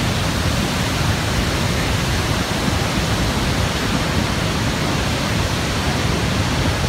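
Niagara's Horseshoe Falls: a huge volume of water pouring over the brink, making a steady, unbroken rushing noise heaviest in the low end.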